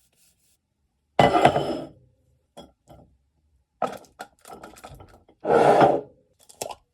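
Kitchen utensils and dishes being handled: two loud scraping, clattering bursts about a second and five and a half seconds in, with scattered clicks and softer knocks between them.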